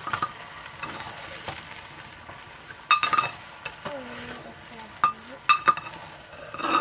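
A wooden stirring stick scraping and knocking against a metal cooking pot as rice is stirred. A dozen or so irregular knocks, some with a short metallic ring, are scattered through it, with the loudest clusters about three seconds in and again after five seconds.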